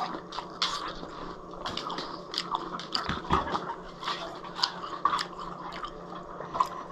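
Dog chewing watermelon: many short, wet crunches and mouth smacks at an uneven pace.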